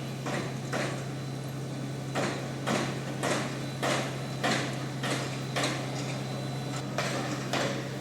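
Regular sharp metallic knocks, about one every half second, starting about two seconds in, over a steady low machine hum.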